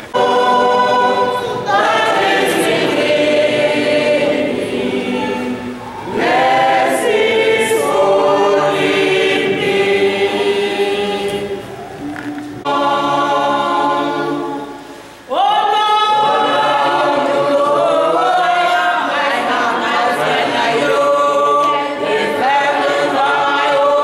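Church choir of women and men singing together in long held phrases, with short breaks about six, twelve and fifteen seconds in.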